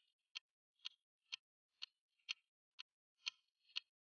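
Clock-ticking countdown timer sound effect: soft, even ticks about two a second.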